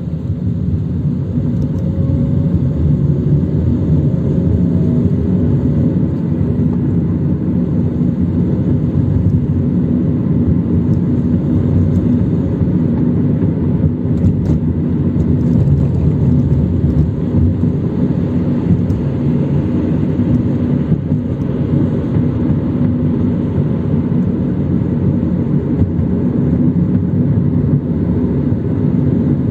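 Steady in-cabin rumble of a car being driven: engine and tyres on the road, heard from inside. A faint rising tone comes a few seconds in.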